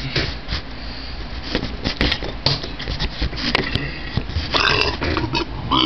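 A person belching on purpose, with a rough, pitched burp about four and a half seconds in, among scattered clicks and knocks.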